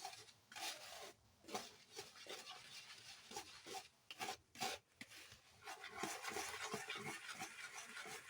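A utensil stirring a dry flour and maize-meal mix in a bowl: faint, irregular rubbing and scraping, becoming steadier near the end.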